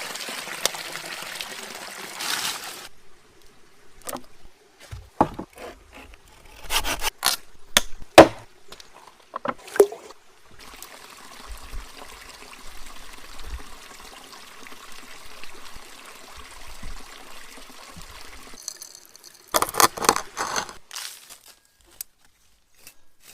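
Liquid pouring and trickling, broken by two spells of sharp knocks and clatter from handling, with a steady hiss through the middle.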